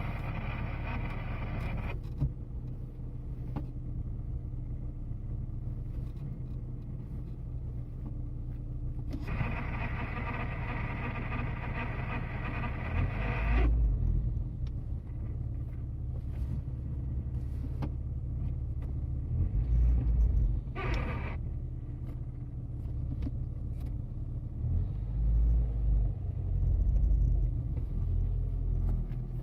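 Nissan S15 idling, with a whine from the clutch or gearbox that comes and goes when the clutch pedal is pressed: briefly at the start, for about four seconds in the middle, and a short one about two-thirds through. The owner suspects the recently fitted throw-out bearing but thinks it may be a gearbox fault.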